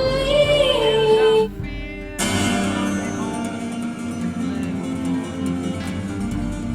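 Music: a sung phrase that breaks off about a second and a half in, then acoustic guitar picking.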